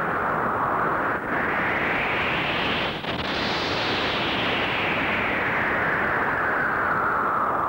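A loud rushing roar that grows brighter toward the middle and then dulls again, with two short dips in level about one and three seconds in.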